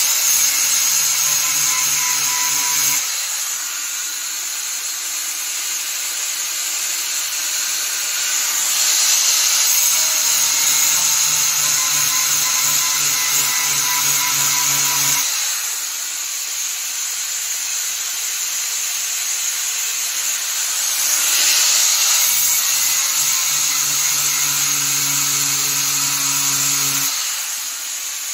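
Power grinder grinding down a metal part for a Suzuki K6A engine's hard-starting repair: a steady hiss of grinding with a lower motor hum that comes and goes three times as the tool is worked.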